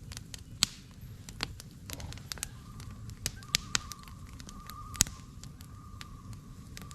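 Campfire burning, with sharp irregular crackles and pops over a low steady rumble. About two and a half seconds in, a thin, slightly wavering whistle starts and holds.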